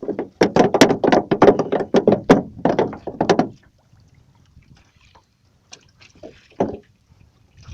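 A fast, irregular run of loud knocks and thumps on a boat, lasting about three seconds, then a couple of fainter knocks near the end.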